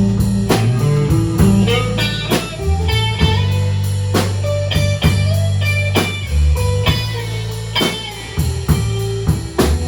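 Live blues band playing a slow blues between sung lines: guitar fills of short note runs over held bass notes and a drum kit hitting about once a second.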